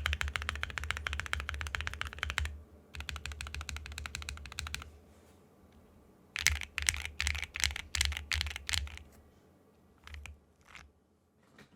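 Custom mechanical keyboard with an aluminium plate, Zakus switches and XMI keycaps being typed on: two fast runs of typing with a short pause between, then a run of separate, louder keystrokes, and a few lone key presses near the end.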